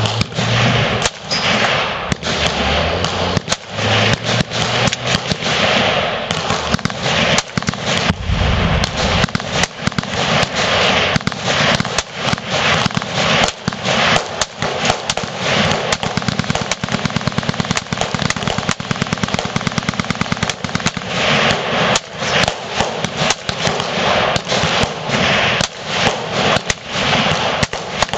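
Many rifles firing at once in a continuous barrage of overlapping shots, with hardly any gap between reports.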